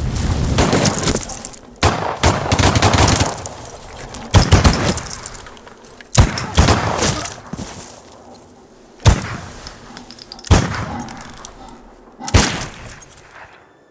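Rifle gunfire: two long bursts in the first few seconds, then five single sharp shots a second or two apart, each followed by a ringing tail.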